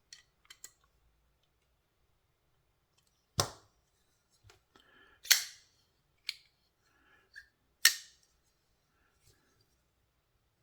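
TWOSUN TS328 folding knife's blade being flipped open, snapping sharply into lock three times, with softer clicks between as it is closed again. This is the pivot action being tested while the pivot screw tension is adjusted.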